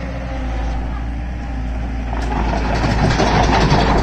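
Excavator's diesel engine running with a steady low rumble, growing louder with a rattling clatter about two seconds in.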